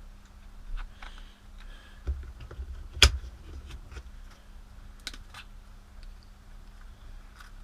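Small plastic accessory tubes and case parts of a rotary-tool kit being handled, giving scattered light clicks and taps, with one sharp knock about three seconds in.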